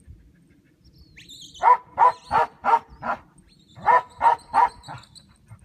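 Dog barking in two quick runs, five barks and then four, about three a second.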